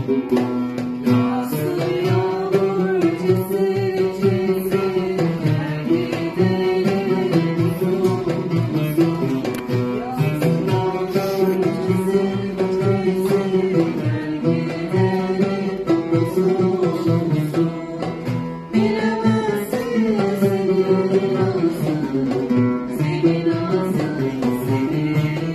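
Women singing a song together, accompanied by a plucked string instrument.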